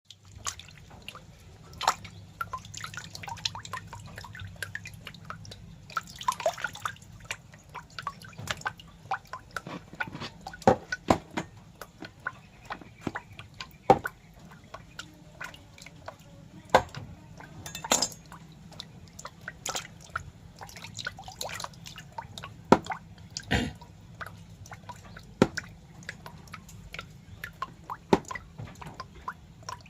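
Irregular wet, drip-like clicks, a few of them much louder, over a faint steady low hum.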